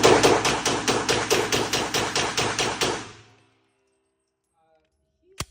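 Pistol firing a rapid string of shots, about six or seven a second for some three seconds, then stopping; a single sharp click comes near the end.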